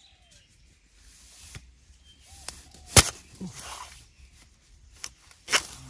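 Scattered sharp knocks and clicks over a faint hiss, the loudest about three seconds in and two more near the end.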